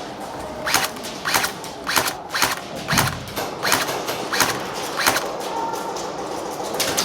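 A series of sharp clacks, about one every half second or so for several seconds, then a quick cluster of them at the end.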